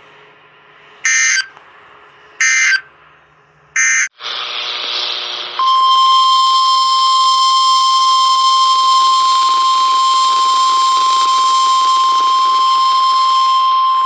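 NOAA Weather Radio alert audio: three short squawks of EAS/SAME digital data, ending the previous warning, then a moment of radio hiss and about nine seconds of the steady 1050 Hz warning alarm tone that opens a new severe thunderstorm warning.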